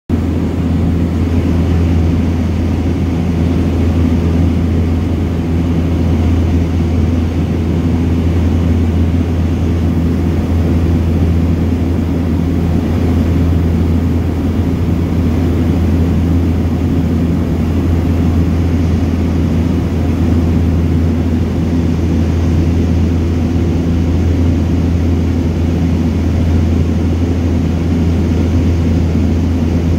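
Cabin noise of a de Havilland Canada DHC-6 Twin Otter on its landing approach: the two PT6A turboprop engines and propellers drone steadily, with a strong low hum and several steady tones above it.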